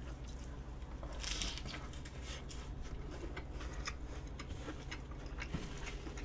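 Quiet eating sounds: soft chewing with scattered small clicks and rustles as food is handled, over a low steady hum.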